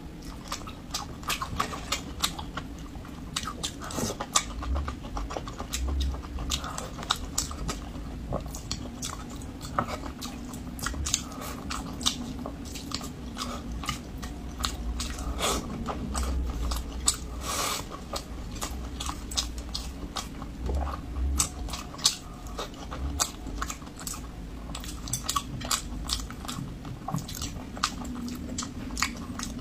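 Close-miked chewing of stewed chicken and rice, with many small irregular mouth clicks and smacks.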